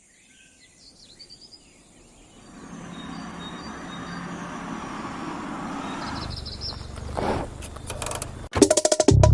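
Ambient sound-effect intro to a song: faint chirping at first, then a swelling haze of outdoor background noise, ending with a quick run of clicks just as plucked guitar music comes in.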